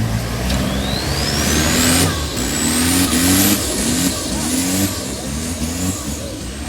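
Off-road 4x4 race truck's engine revving hard in a run of short repeated bursts, with a thin high whine that climbs steadily in pitch over the first few seconds.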